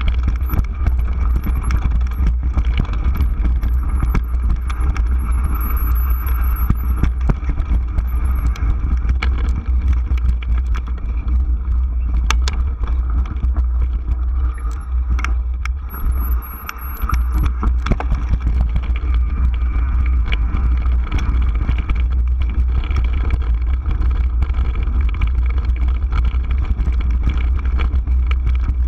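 Gary Fisher Superfly 29er mountain bike rolling over a rocky dirt trail, heard through a handlebar-mounted action camera: a steady heavy rumble of tyre vibration and wind, with frequent rattles and knocks from the bike over rock.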